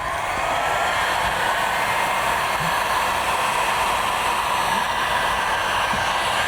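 Heat gun switching on, its motor whine rising over the first second, then blowing steadily, used to warm vinyl wrap so it can be stretched into place.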